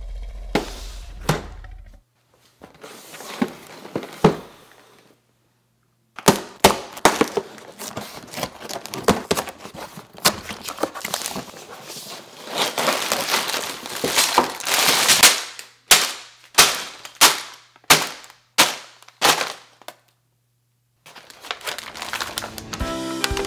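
A cardboard Lego set box being torn open by hand: the cardboard rips and the flaps snap, then paper parts bags and the instruction booklet crinkle as they are pulled out. This is followed by a run of about nine sharp knocks, about two a second, as the contents are handled. Background music comes in near the end.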